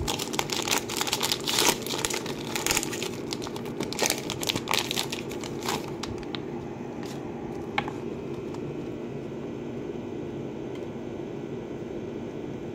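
Trading-card hanger pack wrapper crinkling and tearing as it is ripped open, with dense crackling for about the first half. One sharp click follows a little later, then only a steady low room hum.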